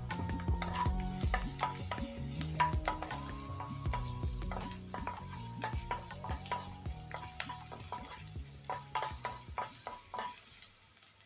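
Wooden spoon stirring and scraping chopped garlic as it fries in oil in a nonstick pan, with a light sizzle and many quick taps of the spoon against the pan. The taps get quieter near the end.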